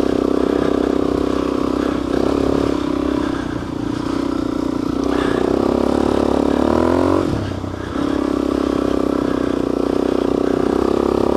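Suzuki DR-Z400S single-cylinder four-stroke engine held at high revs, pulling the dirt bike through deep sand. About six seconds in the revs climb, then drop off briefly before the engine pulls steadily again.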